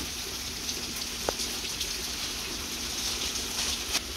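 Steady rain falling, a constant even hiss, with a short click near the end.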